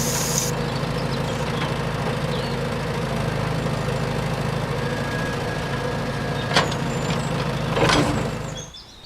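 A motor running steadily with a low hum, with two sharp clicks late on, then stopping shortly before the end.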